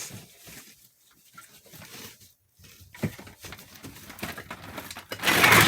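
Light handling clicks and knocks from plastic toy weapons, then about five seconds in a sudden loud, rapid rattling clatter, which is called kind of loud.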